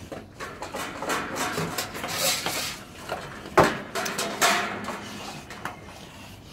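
XL American Bully dogs eating from stainless steel bowls: crunching food and the bowls clattering and knocking, with one sharp knock about three and a half seconds in.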